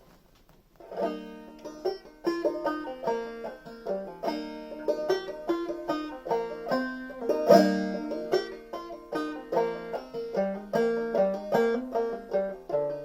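Five-string banjo played clawhammer style: a brisk old-time tune of quick plucked notes with a steady bouncing rhythm, starting about a second in.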